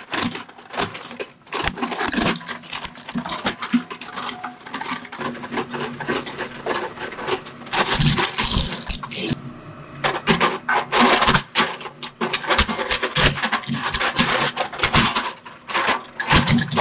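Twin-shaft shredder's steel cutter discs crunching and cracking a hard black plastic car body, a dense run of sharp snaps over the machine's running drone, easing briefly just past halfway before the cracking picks up again.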